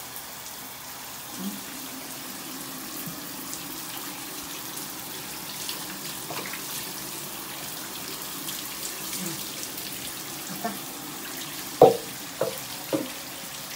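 Water running steadily from a shower in a tiled stall while a dog is washed. Near the end comes one sharp knock, the loudest sound, followed by two softer ones.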